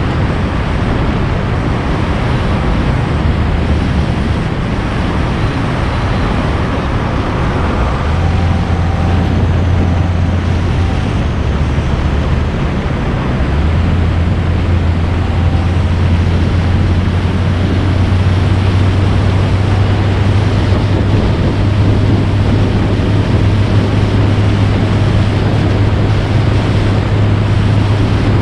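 A road vehicle driving along, with steady road and wind noise and a low engine hum that shifts in pitch a few times as the speed changes.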